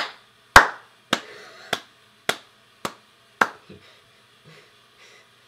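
One person clapping slowly: seven claps at about two a second, growing fainter after the first two and stopping about three and a half seconds in.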